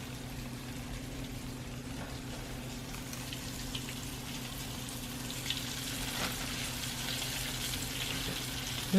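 Flour-dredged chicken wings frying in hot oil: a steady sizzle with scattered pops and crackles, busier in the second half. A low steady hum runs underneath.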